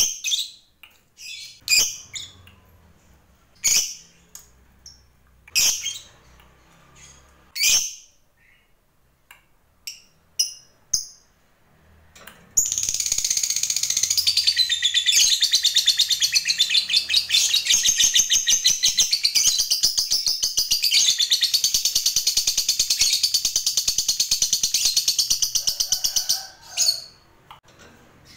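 Lovebird giving single sharp chirps about every two seconds, then breaking into a long, fast chattering trill of rapidly repeated high notes that runs about fourteen seconds and stops suddenly. This long trill is the 'ngekek panjang' that fanciers prize in a 'fighter' lovebird.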